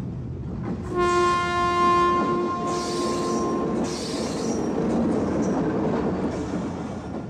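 A steady rumble with a single held horn-like tone for about three seconds, starting about a second in, and two short hisses near the middle.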